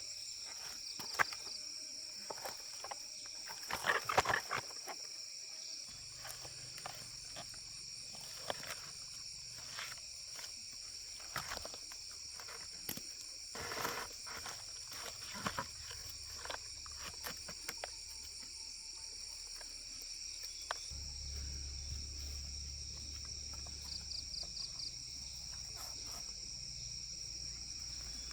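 Steady high-pitched insect chorus, with scattered clicks and knocks and a short pulsing trill near the start and again near the end.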